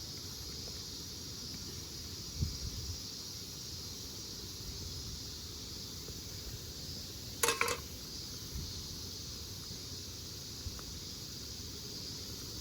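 Steady, even drone of insects, with a soft knock about two and a half seconds in and a brief sharp clink about halfway through.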